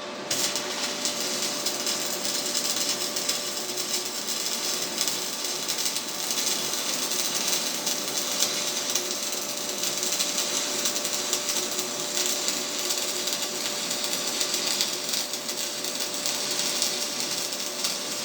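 Stick-welding arc from a 2.5 mm Hilco Red Extra rod burning on wet, rusty, painted scrap steel: the arc strikes at the very start and then crackles and hisses steadily as the bead is run.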